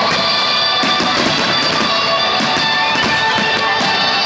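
Music playing while a starmine fireworks barrage goes off throughout in many quick irregular bangs and crackles.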